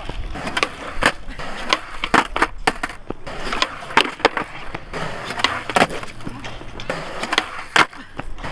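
Skateboard on concrete: urethane wheels rolling with repeated sharp wooden clacks of the tail popping and the board landing and slapping down during flip-trick attempts.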